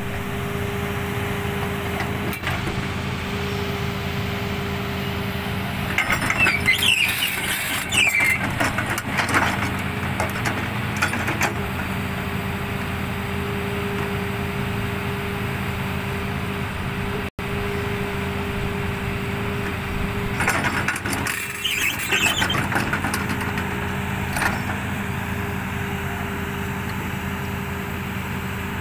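Tata Hitachi ZX220 excavator running with an L&T SL230 slope compactor roller working a sand slope: a steady machine drone. Twice, about six seconds in and again past the twenty-second mark, it gets louder with a scraping, squealing stretch as the roller is worked on the slope.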